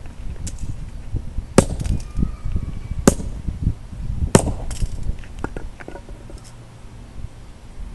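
Sledgehammer striking a Master Lock combination padlock to break it open: three heavy metal blows about a second and a half apart, with lighter knocks in between.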